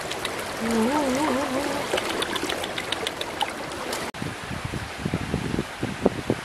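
Shallow stream running over rocks, a steady water rush, with a short wavering, warbling call about a second in.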